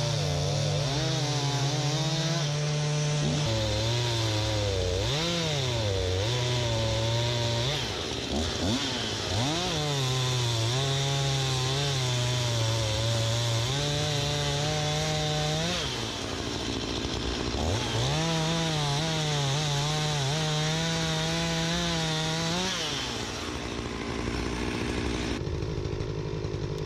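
Chainsaw cutting through wood at high revs, its engine pitch sagging and recovering again and again as the chain loads up in the cut. Near the end it eases off to a lower, quieter running sound.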